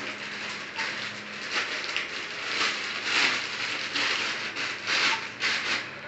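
Irregular rustling, scraping and scuffing from hands handling parts and fittings, with a faint steady hum underneath.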